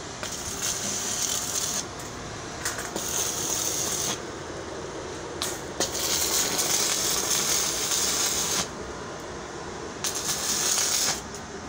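Electric arc welding of a steel mesh fence panel to its post: the arc crackles and hisses in four runs of one to three seconds each, with short pauses between them.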